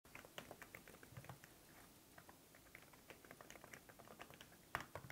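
Typing on the fabric-covered keys of an Apple Smart Keyboard Folio for iPad Pro: quiet, irregular soft key clicks, with one louder keystroke near the end.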